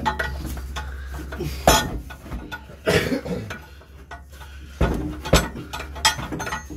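Metal exhaust pipe clanking and clinking as it is worked loose by hand from under the car, with several separate knocks.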